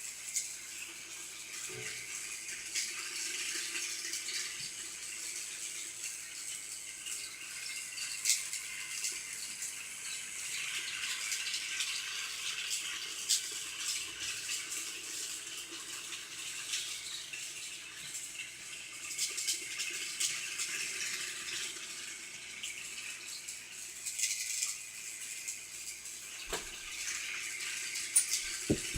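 Toy train running along its track with a continuous rattle, broken by irregular sharp clicks as the wheels pass over the track joints.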